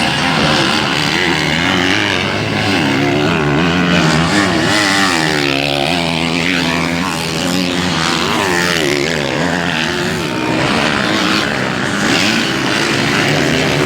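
Several motocross motorcycle engines running at once, their pitch rising and falling as they rev and ease off.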